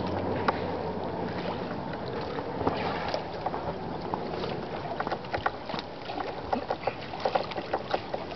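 Water splashing and lapping as a man swims breaststroke in lake water, with the splashes of his strokes getting sharper and more frequent from about five seconds in as he nears the microphone.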